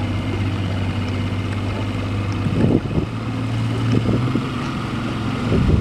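Tiller-steered outboard motor running steadily, driving a small boat under way, with wind on the microphone.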